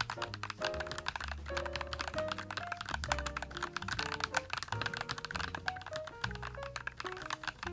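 Fast, continuous typing on the YUNZII x Coolkiller CK75, a gasket-mounted, full-acrylic 75% mechanical keyboard with KSA-profile keycaps, over background music with a melody and bass line.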